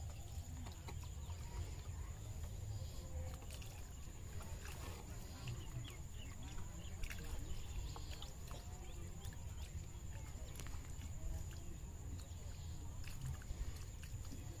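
Low wind rumble on the microphone over scattered small splashes and clicks from fish in a bamboo-fenced fish trap in floodwater, with a steady high-pitched whine throughout.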